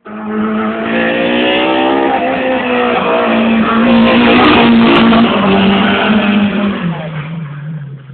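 Rally car passing at speed with its engine held at high revs, getting loudest about halfway through, then its note drops in a couple of steps near the end as it fades.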